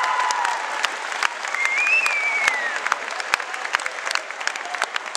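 Audience applauding and cheering, the clapping thinning out and getting quieter, with one high rising-and-falling whoop about two seconds in.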